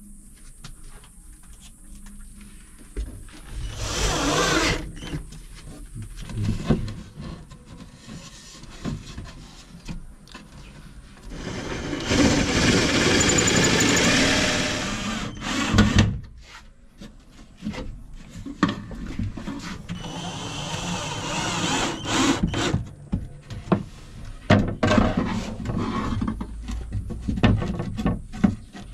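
Red cordless drill-driver driving screws into 13 mm plywood cabinet panels, running in several spurts with the longest, steady run about halfway through. Knocks and clicks of wood being handled come between the runs.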